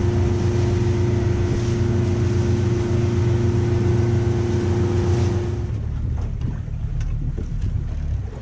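Small boat's engine running steadily underway, a constant drone with a held tone. About two-thirds of the way in it gives way to wind on the microphone and water splashing against the hull.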